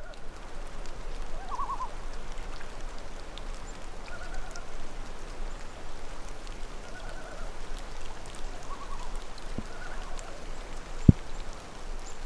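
Common loons calling over a steady hiss: a short wavering tremolo about a second and a half in, then several brief higher notes every couple of seconds. A single sharp thump comes about eleven seconds in.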